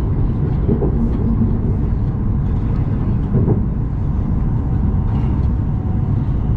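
Steady low rumble of a Joetsu Shinkansen train running, heard from inside the passenger car as it nears Echigo-Yuzawa station.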